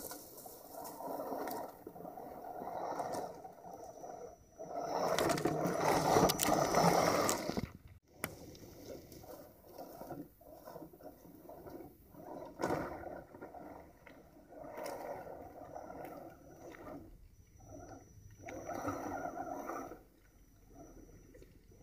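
1/10-scale Axial SCX10 rock crawler crawling in stop-start spurts over sticks and dry leaves, its tires crunching and scraping through the debris, with a faint high whine from the drivetrain. It is loudest about five to eight seconds in.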